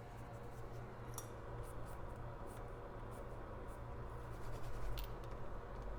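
Faint, irregular scratching and rubbing strokes from cleaning the top side of an iPhone CPU chip, over a steady low hum.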